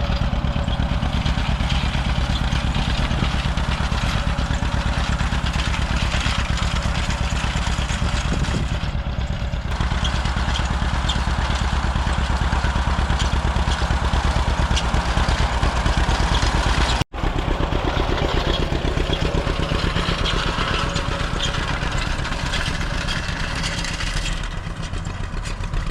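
Vintage John Deere tractor engine running steadily and close, with an even, rapid beat. The sound drops out for an instant about seventeen seconds in, then the engine carries on.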